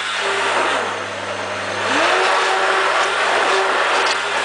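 Electric hand blender running in a bowl of pancake batter, a steady motor whine over the churning of the batter; the motor's pitch climbs about two seconds in.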